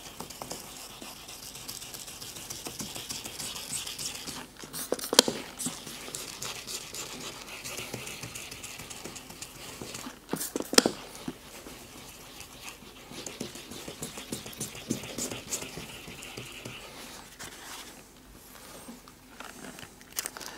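1000-grit wet sandpaper scrubbing back and forth on a plastic headlight lens, a steady rasping scratch as it cuts off the oxidised, hazed outer layer. Two sharp clicks about five and ten and a half seconds in, and the scrubbing eases off near the end.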